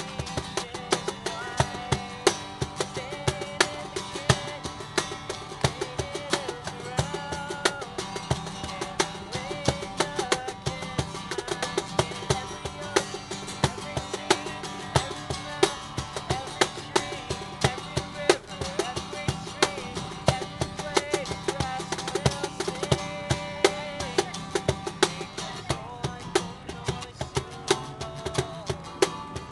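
Acoustic guitar played together with a Meinl cajón slapped in a steady, busy rhythm.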